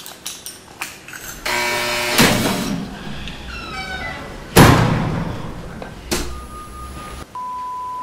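Heavy thuds and slams: a short buzz, then a loud impact about two seconds in, another, the loudest, in the middle, and a third about a second and a half later. Near the end a steady electronic beep begins.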